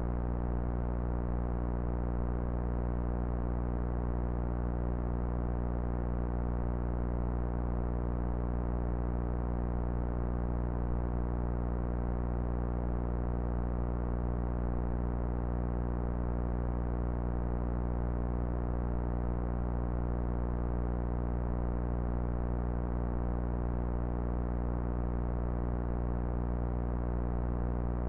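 Steady low synthesizer drone: one held low tone with many overtones that does not change in pitch or loudness.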